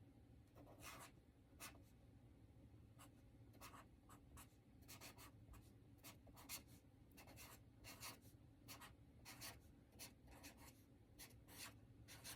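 Fine tip of a metallic blue Clean Color Dot marker writing on paper: faint, irregular short scratchy strokes.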